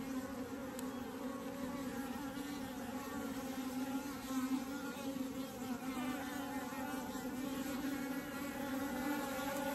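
Honeybees buzzing around an open hive in a steady, low hum that includes the deeper buzz of flying drones.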